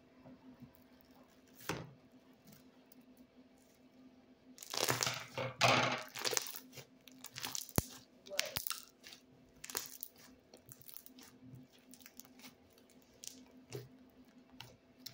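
A lump of slime being squeezed and folded by hands, making sticky squishing with small popping clicks. It is loudest in a burst about five seconds in, then comes in scattered short pops.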